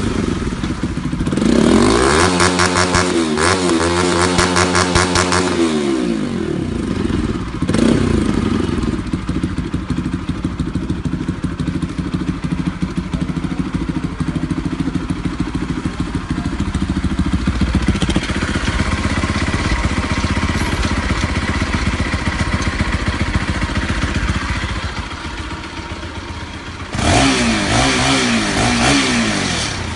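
Bajaj Pulsar NS200 single-cylinder engine with a drilled exhaust, revved up and held for a few seconds, blipped once, left running steadily, then revved again near the end.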